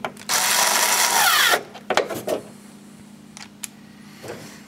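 Cordless drill running for about a second as it drives a window regulator mounting screw into a Jeep Wrangler door panel, then a few light clicks.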